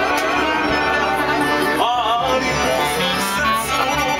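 A live band playing, with an accordion among the instruments and singing over it. The music runs continuously at a steady level.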